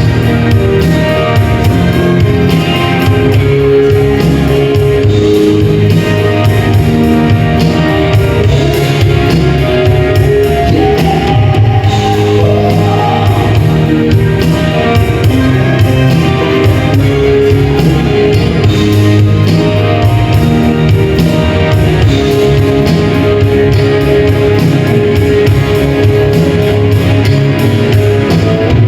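Live band playing loud amplified music with a steady beat and sustained melody notes.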